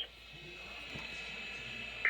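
Faint steady hiss of weather-radio static: dead air between broadcast messages, with no voice.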